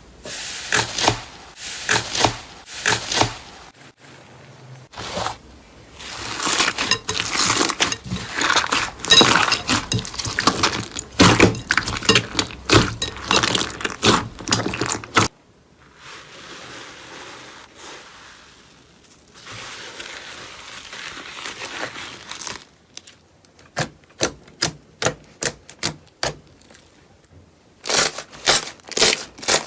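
Slime being squeezed and pressed by hand, giving dense crackling pops through the first half. A softer, steadier rustle follows, then a run of separate sharp clicks and pops near the end.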